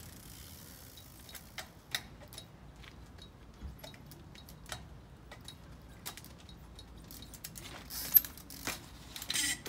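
Trials bicycle making scattered light clicks and rattles from its chain and freewheel as the rider sets up on the rock. Near the end there is a sharp knock and short scuffs as the bike climbs onto the boulder.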